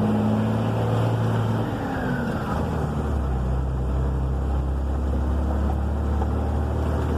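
Loaded truck's diesel engine pulling uphill. About two seconds in, its note drops and then runs on at a lower, deeper pitch.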